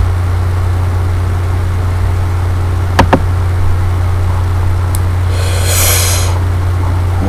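A steady low electrical hum, with a sharp click about three seconds in and a brief hiss a little before six seconds.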